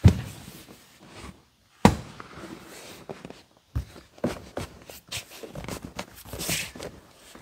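Thumps and knocks of a newly re-covered leather rear bench seat being dropped into a car's back seat well: a sharp thump at the start and another just under two seconds in, then scattered knocks and leather rubbing as it is pushed and settled into place.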